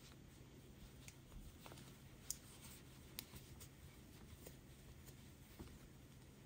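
Near silence, with soft rustling and a few faint light clicks from a crochet hook working bulky yarn in post stitches.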